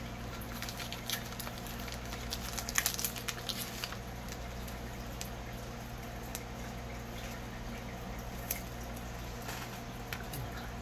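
Trading cards and their wrappers being handled: soft rustling and small clicks, busiest around two to four seconds in, over a steady low hum.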